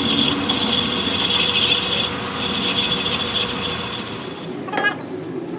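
Power tool working metal with a steady high whine, dying away about four and a half seconds in, then a single ringing metal clink.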